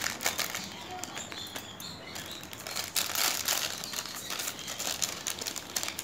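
Thin plastic wrapper of a saline infusion set crinkling and rustling as it is cut open and handled and the clear tubing is pulled out, in irregular crackles with a louder stretch about three seconds in.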